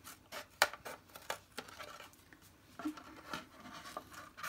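Scissors cutting through a plastic milk bottle: a series of short, irregularly spaced snips.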